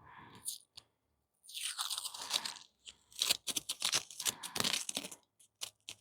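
Plastic packaging crinkling and rustling as a wiring harness is handled and unwrapped: a longer rustle about a second and a half in, then a quick run of crackles.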